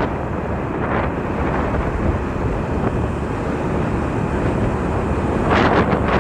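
Motorcycle riding noise: wind buffeting the microphone over the engine and road noise, gusting harder near the end.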